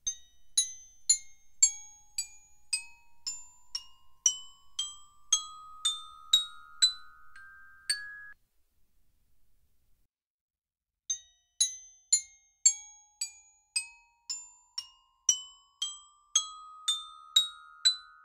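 Glockenspiel playing a rising run of about sixteen struck, ringing notes, about two a second. After a pause of about three seconds the same passage starts again. These are two takes in a blind comparison of the original source against cassette recordings on metal tape and on normal tape with Dolby S.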